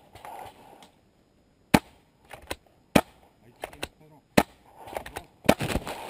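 Paintball marker firing four single shots, each a sharp pop, roughly a second or so apart.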